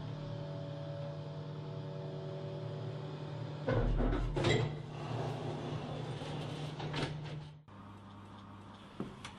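Platform glass elevator: a steady machine hum, then about four seconds in a clunk and the rush of its sliding doors opening. A click follows, and the hum cuts off suddenly near the end.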